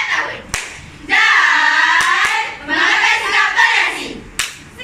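A girls' choir singing in unison: a long held phrase whose pitch dips and rises, then a second shorter phrase. A sharp clap-like hit sounds about half a second in and another near the end.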